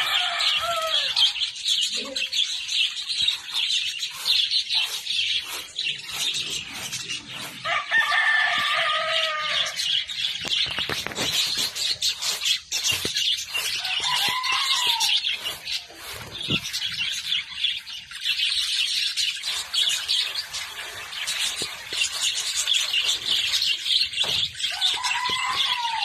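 A flock of lovebirds chattering in dense, high, continuous chirps. A few lower, longer calls rise over the chatter about eight, fourteen and twenty-five seconds in.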